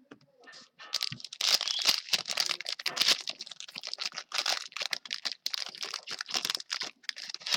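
Plastic foil wrapper of a trading-card pack being torn open and crinkled: a dense, irregular crackling that starts about a second in and runs on for several seconds.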